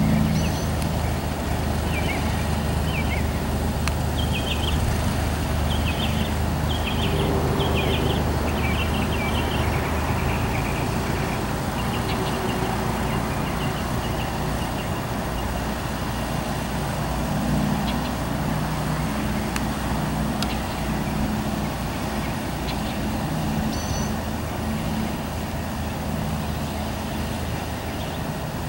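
Cessna 172's single piston engine and propeller running at low idle power as it taxis, a steady drone with a constant low hum. A few short high chirps repeat during the first ten seconds.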